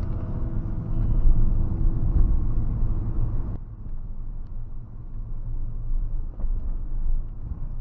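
Car driving along a highway: steady low engine and road rumble, which drops abruptly to a quieter, duller rumble about a third of the way in.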